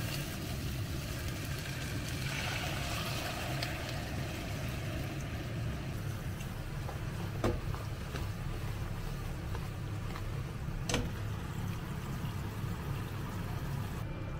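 Chicken thighs sizzling in teriyaki sauce in a nonstick frying pan, over a steady low hum. A utensil knocks sharply against the pan twice, about seven and eleven seconds in.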